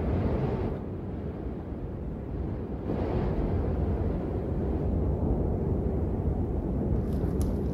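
Wind blowing through a snowy pine forest, a steady low rumbling noise that eases off briefly about a second in and then picks back up, with a few faint crackles near the end.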